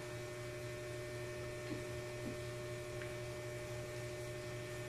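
Steady low electrical hum with a couple of faint higher steady tones over it, and two faint soft sounds near the middle.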